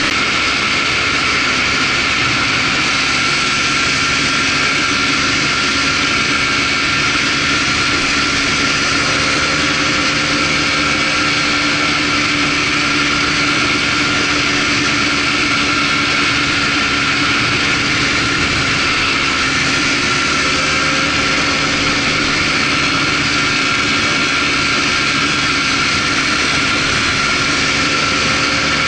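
Polaris Trail Blazer ATV engine running steadily at cruising speed, with a constant rushing noise of the ride along a dirt trail.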